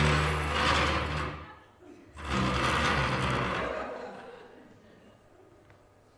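A small electric motor buzzing in two bursts: one of about two seconds, then after a short break a second that fades out by about four seconds in.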